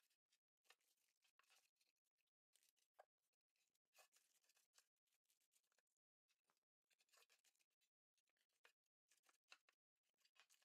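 Near silence, with faint scattered rustles and ticks from wet parchment paper being pressed into a loaf pan and fastened with small binder clips.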